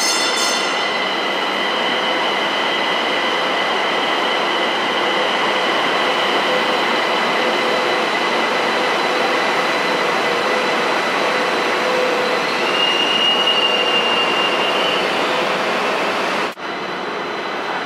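Siemens SD-400 light rail train running into an underground station: a steady rumble of wheels on rail with high, held wheel squeal, which grows sharper for a couple of seconds near the end as the train slows at the platform. The sound breaks off abruptly shortly before the end.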